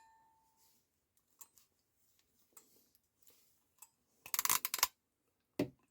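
Ratcheting crimping pliers clicking as the handles are squeezed down on a wire in a red butt connector: a few faint, scattered ratchet clicks, then a quick, louder run of clicks a little over four seconds in as the crimp is completed.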